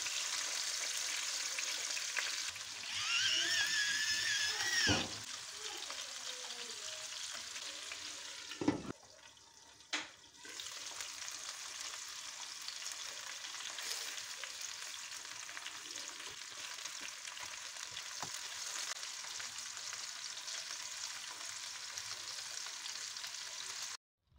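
Salmon fillets sizzling steadily as they fry in oil in a nonstick pan. A brief high squeal sounds about three seconds in, and a knock comes near nine seconds.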